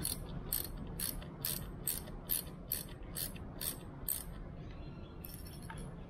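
Ratcheting socket wrench clicking as it tightens an 8 mm nut on a battery isolator terminal, about two clicks a second, stopping about four seconds in. A short, quicker run of ratchet clicks follows near the end.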